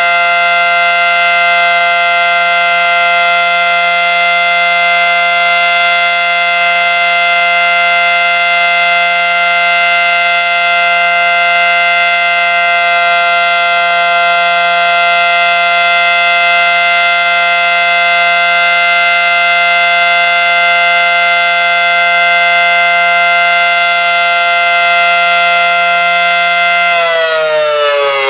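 Federal Signal Model 5T electromechanical warning siren sounding a steady alert, a loud held chord of several pitches. About 27 seconds in it begins to wind down, its pitch falling.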